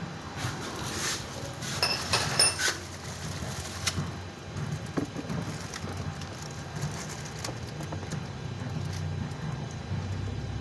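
A quick cluster of metallic clinks and rattles, like tools or small metal parts knocking together, about two seconds in, over a steady low hum.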